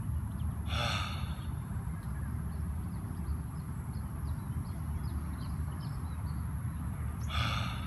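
A man breathing audibly twice during a yoga breathing exercise, each breath a short rush of air lasting about half a second: one about a second in and one near the end. Under the breaths is a steady low rumble, with a faint high whine and a few faint bird chirps.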